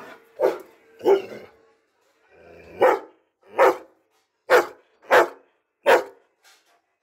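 Doberman pinscher barking: seven loud barks in short bursts, with a pause of about a second after the second one.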